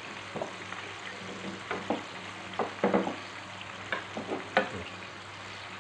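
Breaded chicken chop deep-frying in a pan of oil, a steady sizzle with scattered short clicks and taps over a faint low hum.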